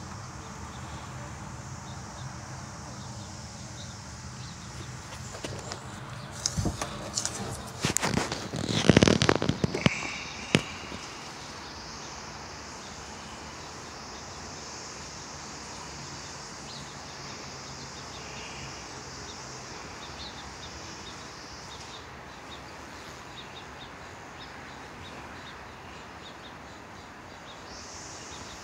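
Handling noise: a few seconds of crackling, rustling and knocks, loudest about nine seconds in, over a steady outdoor background with a faint high hiss.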